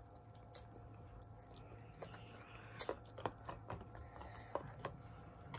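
Faint chewing of sour candy: a few soft, short mouth clicks in the middle, over a low steady hum.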